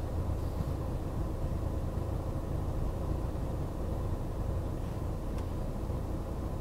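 Renault Trafic's Blue dCi 170 diesel engine running, a steady low rumble heard inside the van's cab.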